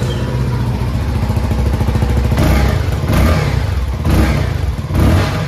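Keeway K300N motorcycle engine, just started, idling and blipped on the throttle about four times in quick succession over the second half.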